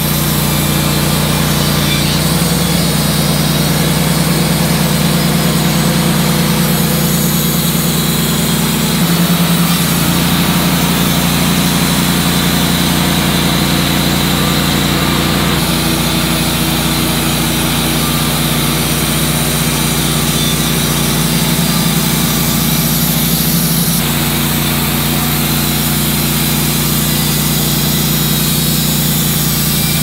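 Wood-Mizer LT15 portable band sawmill running steadily while its band blade saws boards from a log. The engine note shifts slightly a few times.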